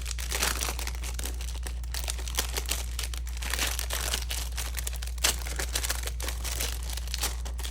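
Paper packaging crinkling and rustling in irregular, closely spaced crackles as mailed items are unwrapped and handled by hand, over a steady low hum.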